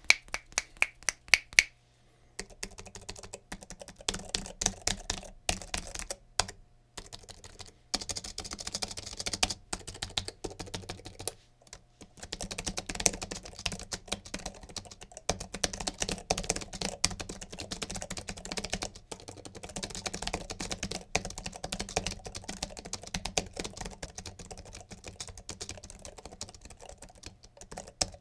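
Keystrokes on a Sablute H1 wireless keyboard's non-mechanical, low-profile keys, which the reviewer takes for scissor switches. A few single key taps come first, then after about two seconds a steady run of typing with a couple of brief pauses.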